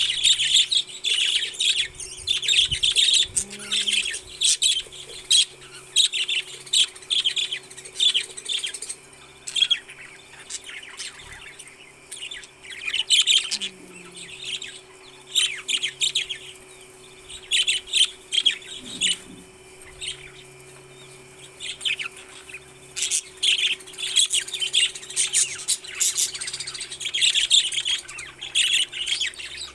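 Pet parrots chirping and calling, many short high-pitched calls coming in dense clusters with brief lulls between them.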